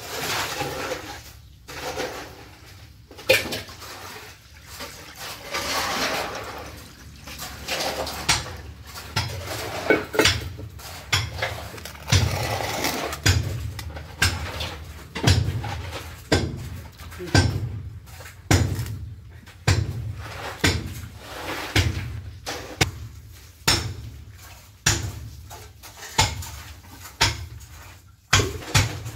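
Water poured and sloshing in a stainless steel wok, then a long run of sharp knocks and splashes, about one a second, as handfuls of sliced mushrooms are dropped into the water to boil.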